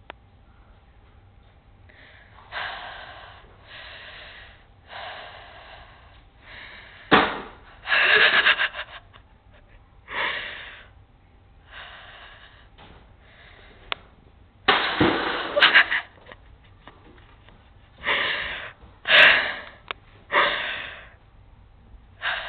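Bursts of breathy, stifled laughter: wheezy gasps and snorts coming in fits and fading, with sharp knocks about seven and fifteen seconds in.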